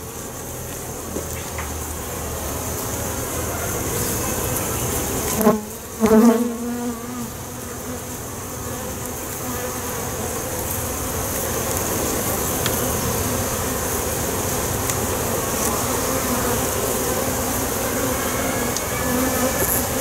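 A colony of honey bees humming steadily in an open, crowded hive box, briefly louder about six seconds in.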